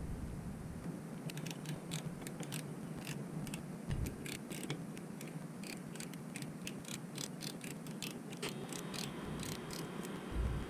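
A run of small, sharp, irregular clicks as a hand tool turns out the air-fuel mixture screw on a Harley-Davidson Sportster CV carburetor. A couple of dull knocks come from the carburetor body being handled, one about four seconds in and one near the end, over a steady low hum.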